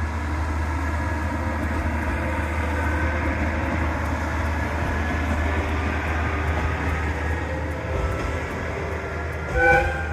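Sanriku Railway diesel railcar running with a steady low rumble, and a short, loud tone near the end.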